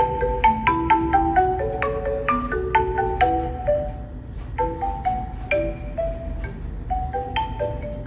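Music: a quick melody played on a marimba-like mallet instrument, short struck notes stepping up and down, over a steady low rumble.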